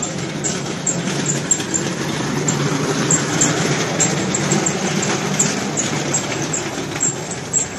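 Street traffic noise: a vehicle engine running close by, a steady rumble with scattered light clicks over it.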